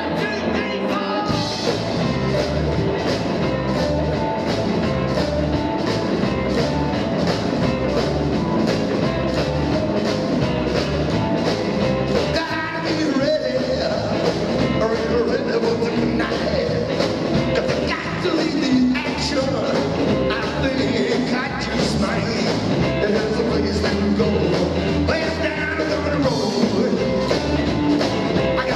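Live rockabilly band playing: electric guitar, upright double bass and drum kit over a steady beat.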